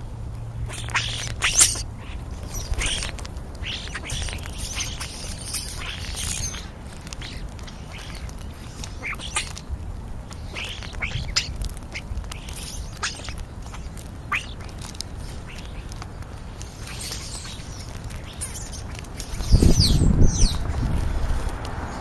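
European starlings feeding close by, giving many short harsh squawks and chirps. Near the end there is a louder low rumble.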